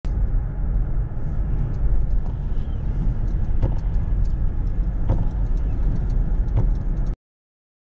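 Car cabin noise while driving: a steady low rumble from the road and engine, with three light knocks about a second and a half apart as the windscreen wipers sweep. The sound cuts off suddenly near the end.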